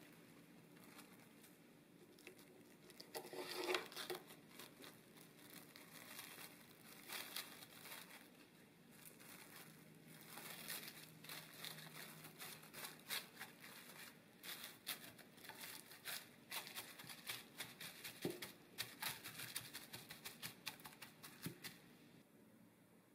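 Plastic cling wrap crinkling as hands press and smooth it into a loaf pan: faint, irregular crackles and rustles, loudest about three to four seconds in, dying away near the end.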